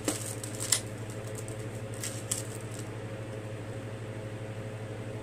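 A few light clicks and rustles of small packaged items being handled in the first few seconds, over a steady low room hum.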